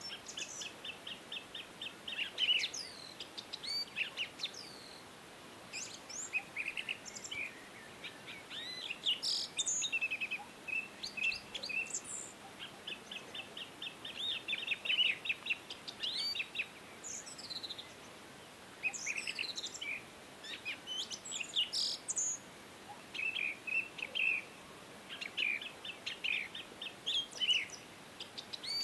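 Small birds chirping and singing: rapid rattling trills and short, high sweeping notes, with a few brief pauses.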